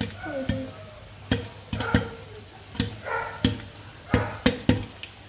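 Popcorn kernels popping in a pan under a glass lid: more than a dozen sharp, irregular pops, coming faster toward the end.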